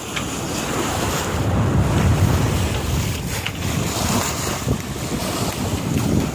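Wind buffeting the microphone at a sailboat's bow over the rush of ocean waves and water splashing past the hull as the boat cuts through it.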